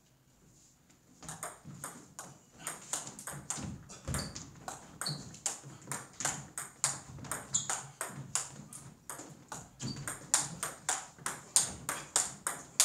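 Table tennis rally: the ball clicking off the rackets and table in a quick, steady run of several hits a second, starting about a second in.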